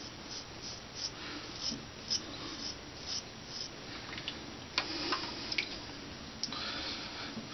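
Straight razor scraping through lathered beard stubble in short, scratchy strokes about twice a second, then a few sharp clicks about five seconds in and a steadier hiss near the end.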